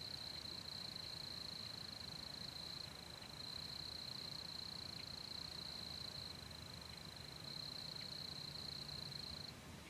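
Night insects trilling in one steady high buzz that drops out briefly about three seconds in, pauses again after six seconds, and breaks off near the end.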